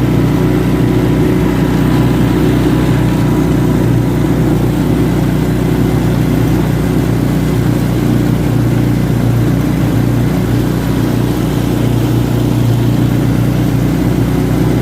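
Four-wheeler (ATV) engine running steadily at an even speed while towing a small vehicle on a wire.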